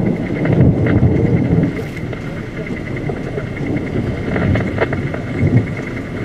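Low, gusty rumble of a severe thunderstorm, heavier for the first two seconds and then easing, with a thin steady high tone running underneath.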